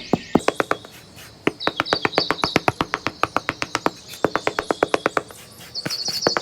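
Quick runs of sharp taps, about seven a second, stopping briefly twice, with birds chirping in the background.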